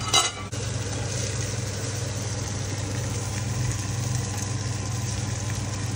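A steady low motor hum with an even hiss over it, like a kitchen fan running. A short metallic clink comes right at the start.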